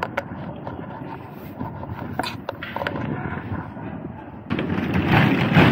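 Metal clanks and clicks of a semi-trailer's rear swing-door lock rods and latch handle being worked loose. About four and a half seconds in, a louder continuous scraping rush begins as the door swings open.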